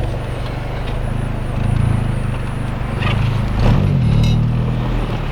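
Mazdaspeed Protege5's turbocharged four-cylinder engine with a straight-pipe exhaust running at low revs as the car creeps along, with small rises in revs about two seconds in and again near four seconds.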